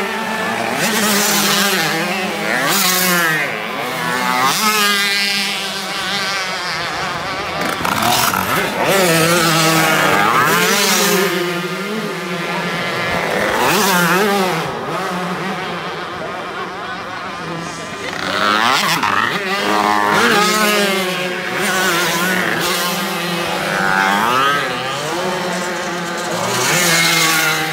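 Racing VéloSolex-type 50 cc roller-drive two-stroke mopeds passing one after another, each engine's buzzing whine rising and falling in pitch as it goes by.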